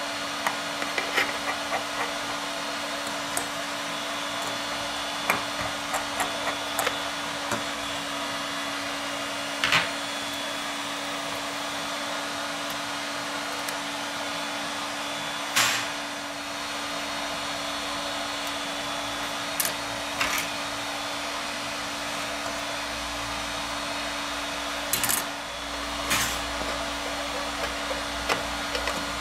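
Small sharp clicks and taps of a precision screwdriver and tweezers on an iPhone 6's aluminium housing as tiny screws and brackets are worked, about a dozen scattered through, over a steady hiss with a low hum.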